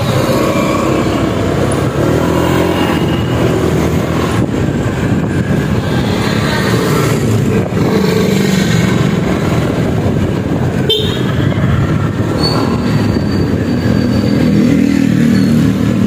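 Honda Click 125i scooter's single-cylinder engine running steadily while riding along, its pitch shifting a little with the throttle. There is a brief sharp click about eleven seconds in.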